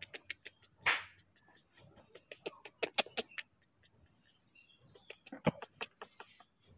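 Quick wet clicks and smacks of a baby macaque sucking and mouthing a person's fingers, coming in irregular clusters, with one louder burst of noise about a second in.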